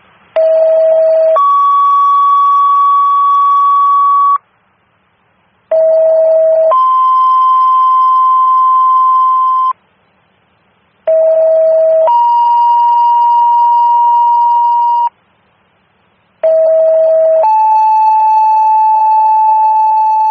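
Four two-tone sequential paging tones over the fire dispatch radio. Each is a short low tone of about a second followed by a longer, higher tone of about three seconds, and the second tone is a little lower in each pair. This is the tone-out that alerts the fire companies assigned to an alarm of fire.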